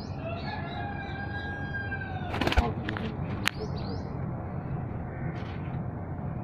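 A short burst of pigeon wing-flaps clatters about halfway through, as the bird is let go onto the loft ledge, followed by a single sharp click. Before it, a steady tone with several pitches slowly falls for about two seconds, over a low background hum.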